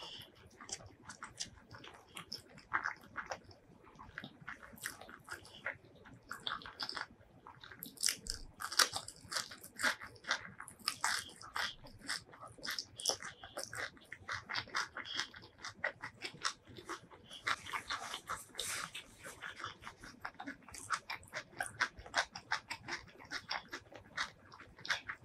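Close-miked eating sounds: steady chewing and crunching of hand-fed mouthfuls of rice, curried egg and crisp raw greens, with many small wet mouth clicks.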